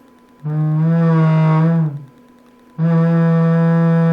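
Eico ST70 tube amplifier's right channel oscillating, heard as a loud, steady, buzzy low tone in two long stretches, the first about a second and a half, the second starting near the end, over a faint steady 1 kHz test tone.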